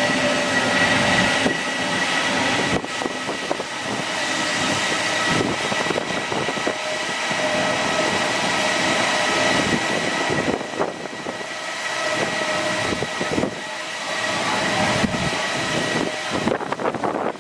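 Jet engines of an Airbus A320-family airliner running: a steady high whine over a loud rushing noise, which fades near the end.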